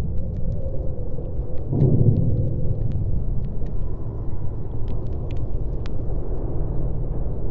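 Deep, continuous rumble that swells about two seconds in, with faint scattered crackling ticks above it.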